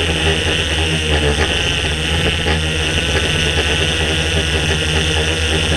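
DJI S800 EVO hexacopter's six motors and propellers running steadily in flight, heard from the GoPro mounted on it: a loud, even drone of several steady tones with a hiss above.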